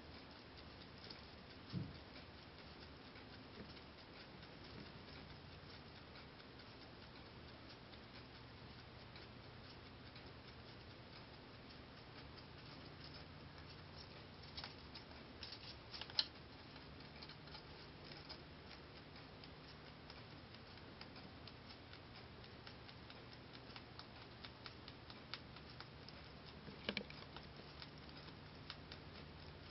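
Holland lop rabbit chewing timothy hay: a steady run of faint, crisp crunching clicks, with a few louder snaps here and there.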